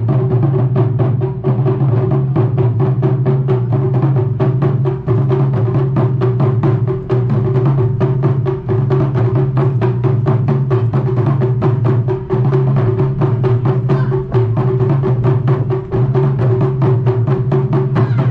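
Taiko ensemble drumming: Japanese barrel drums struck with wooden sticks in a fast, steady rhythm of about four strokes a second, with a deep ringing boom carrying between the hits.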